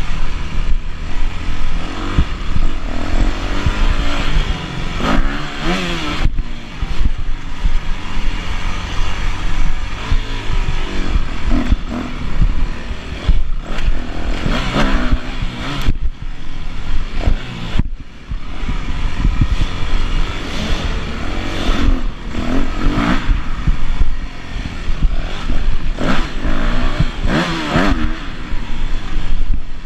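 Yamaha YZ250F four-stroke single-cylinder motocross engine being ridden hard, revving up and falling back again and again through the turns, with a few brief drops in level as the throttle is shut.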